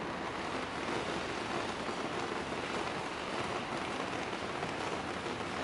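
Steady rain falling on a wet street and pavement, a continuous even hiss.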